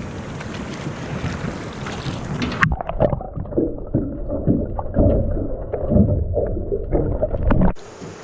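Wind and water noise on the microphone. Then, from under three seconds in, it cuts abruptly to muffled underwater sound: a diver's bubbling gurgles and knocks, with the high end dulled by the water. This stops abruptly near the end.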